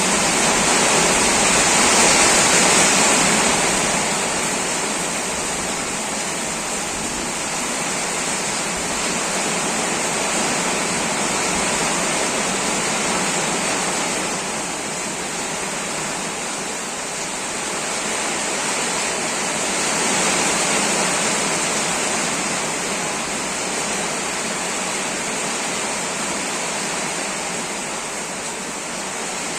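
Rain falling steadily in a dense, even hiss that swells and eases slightly a couple of times.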